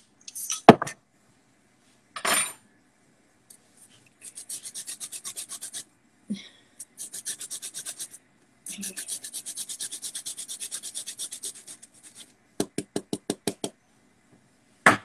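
Lemon being zested on a metal box grater: quick rasping strokes, about eight a second, in three runs. A sharp knock about a second in, and a run of quick taps near the end.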